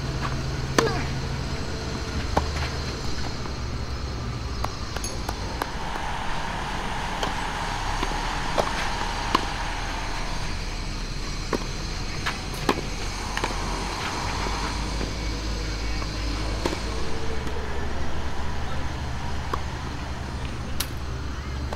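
Tennis rallies: rackets striking the ball in sharp single hits, irregularly spaced a second or more apart, over steady outdoor background noise with a low hum.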